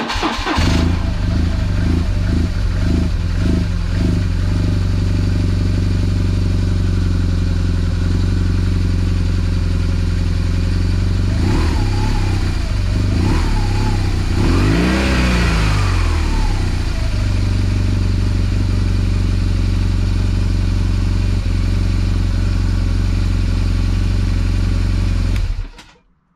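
BMW GS motorcycle's boxer-twin engine starting and settling into a steady idle of about 1,400 rpm. It is blipped up and back down a few times about midway, then switched off near the end.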